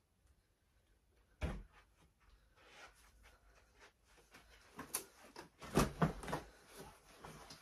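Items being handled during packing: a single sharp knock about a second and a half in, then rustling and small handling noises, and a run of louder knocks and clatter near the end.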